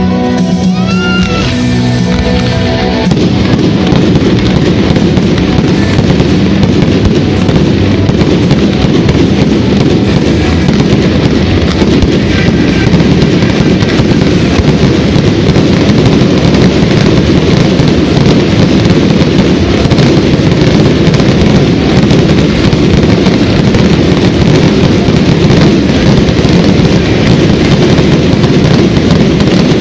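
Music plays, then about three seconds in a loud, unbroken barrage of fireworks bursts and crackle takes over and continues without pause, with the music still underneath.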